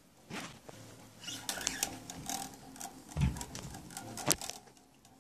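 Scattered clicks, taps and knocks of small objects being handled, with a dull thump about three seconds in and a sharp click a little after four seconds.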